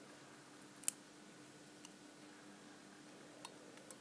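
A few small metal clicks from hand work on a brass padlock and its picking tools, the sharpest about a second in, over a faint steady hum.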